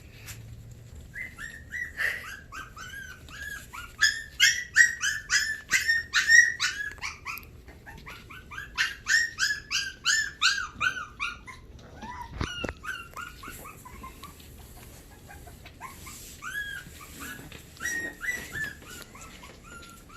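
Young Havanese puppies whimpering and crying: rapid runs of short, high, falling cries, several a second, coming in bouts with brief pauses between them.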